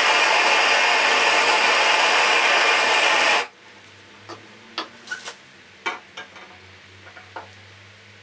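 Propane torch burning with a steady loud rush into a fire-brick forge while it heats a steel knife blade. It cuts off suddenly about three and a half seconds in. After that come a handful of light clicks and knocks as the hot blade and locking pliers are handled.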